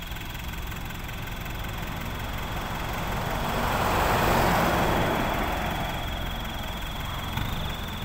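A small dump truck's engine idling steadily while its tipped bed unloads soil, with a steady high whine over it. In the middle a wider rushing noise swells up and fades away again.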